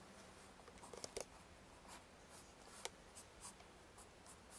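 Soft graphite pencil drawing on paper: faint, light sketching strokes with a few sharper scratches as the lines are laid down.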